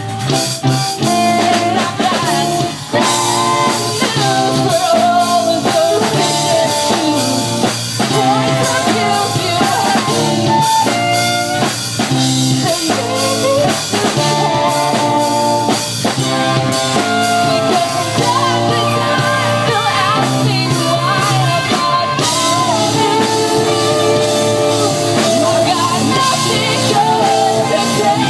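Rock band playing live: singing over electric guitar and drum kit.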